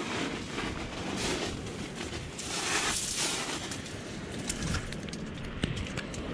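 Close rustling of clothing and gear against the microphone over a steady rush of wind noise, with a louder rustle about two and a half seconds in and a few light clicks toward the end.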